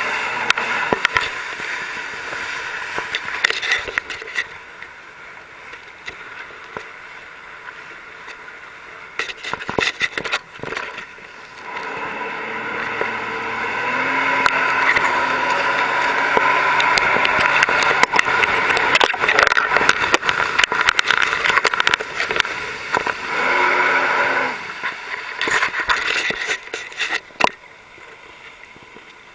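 Engine of a small watercraft on a lake: a steady hum over wind and water noise, with knocks and rattles of handling in the first half. The hum drops away a few seconds before the end, leaving clicks and knocks.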